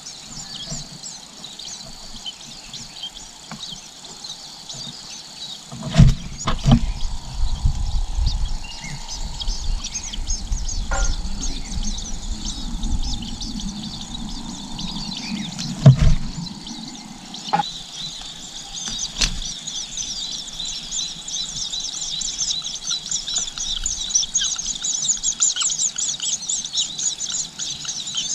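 Nestling birds giving rapid, high-pitched begging chirps, which grow louder and more continuous in the last third. Two loud thumps with a low rumble break in about six and sixteen seconds in.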